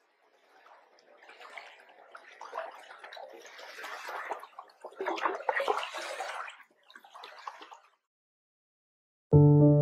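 Water gurgling and splashing in irregular surges that build up and then stop shortly before the end.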